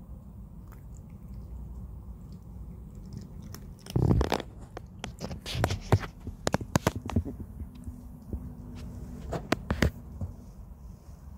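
Cat chewing dry kibble: a run of sharp, irregular crunches from about four seconds in until near the end, with a louder bump just as they begin.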